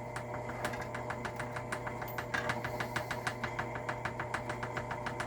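Rapid, even tapping, about five taps a second, over a steady hum: buffer being tamped down around buckshot inside a shotshell hull.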